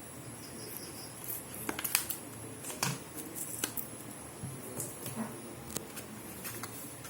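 Small cardboard earphone box and its paper contents being handled: scattered rustles, taps and light clicks, busiest from about one and a half to four seconds in.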